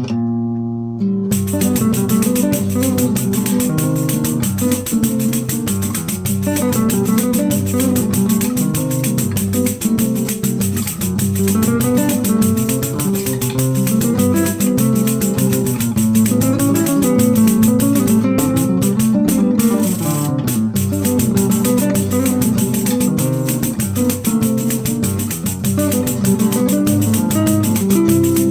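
Two nylon-string classical guitars playing a choro together with a pandeiro keeping a steady samba rhythm. A lone guitar leads in, and the full ensemble enters about a second in.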